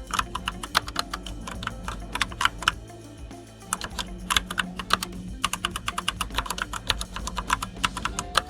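Typing on an EvoFox Katana X2 mechanical keyboard with red linear switches: quick, irregular key clacks, with a short pause about three seconds in.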